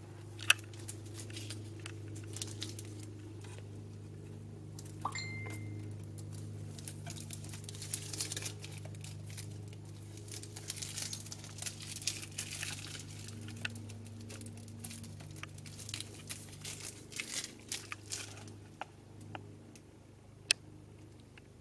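Protective plastic film being picked at and peeled off the front of a portable PA speaker, crinkling and tearing in irregular bursts, with a few sharp fingernail clicks on the plastic. A steady low hum runs underneath.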